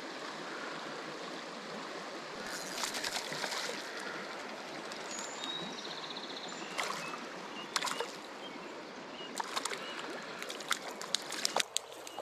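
Shallow stream water rushing steadily over a riffle, with scattered sharp clicks and ticks, most of them in a cluster near the end.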